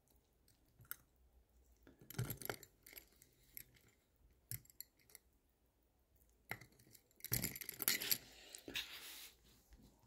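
Faint scattered clicks and light rustling as a watch movement and its holder are handled, with a denser, louder patch of rustling about three-quarters of the way through.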